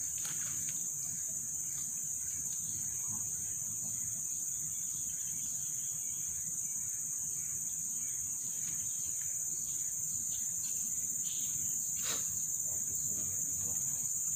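Steady high-pitched chorus of insects droning without a break, with one soft knock near the end.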